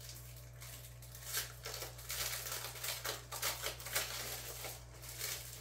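Packaging crinkling and rustling in the hands as a small card packet is handled, a run of short crackles with brief pauses between.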